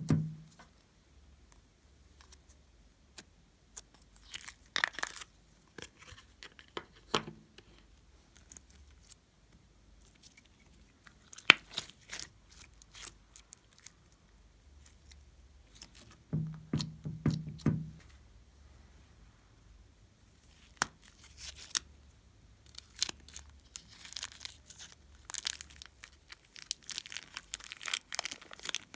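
Glossy slime being stretched and pressed by hand, giving sticky pops, crackles and clicks in scattered bursts. The crackling grows denser near the end.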